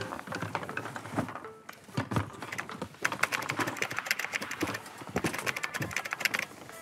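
Rustling and clatter of cardboard boxes and plastic wrap being rummaged through. About three seconds in, a fast run of keyboard-typing clicks begins, a typing effect for the title being typed out, and stops shortly before the end.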